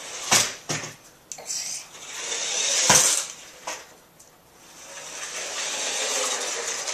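Toy remote-control car's small electric motor whirring as it drives, swelling and fading twice, with a few sharp knocks as it bumps into things.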